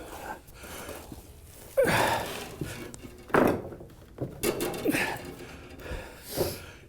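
A series of irregular knocks and thuds, the loudest about two seconds in and again a second and a half later, with a few lighter ones after.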